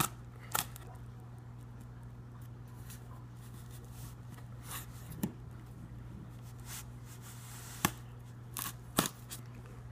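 Knife blade cutting and scraping along the sealed lid seam of a styrofoam shipping box: a scatter of short sharp scrapes and clicks, the sharpest near the start and about eight and nine seconds in, over a steady low hum.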